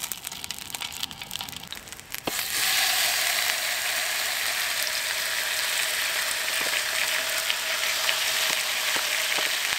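Cumberland sausages frying in a non-stick pan on a portable gas stove, crackling with scattered pops. About two seconds in there is a click, and the sizzling suddenly gets much louder and stays steady.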